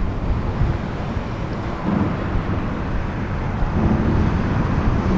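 Wind buffeting the microphone over a steady low rumble, with no clear single event.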